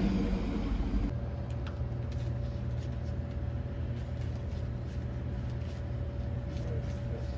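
A steady low hum of store background machinery, with a faint steady whine and a few soft ticks. It follows a brief stretch of louder outdoor traffic-like rumble that cuts off about a second in.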